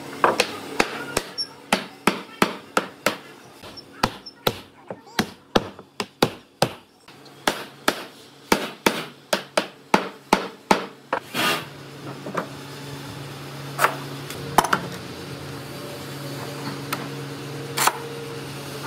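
A rapid series of hammer blows on wood, about two or three a second, that stops about two-thirds of the way through. A steady low hum carries on after it, with a few more scattered knocks.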